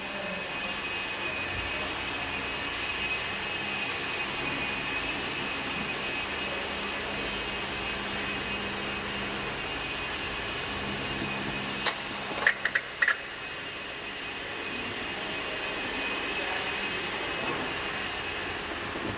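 A steady mechanical hum, like an engine running, with a short cluster of sharp metallic clicks about twelve seconds in.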